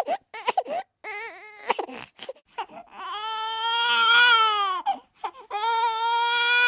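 Baby crying: short, broken sobbing cries, then two long wails, the first starting about three seconds in.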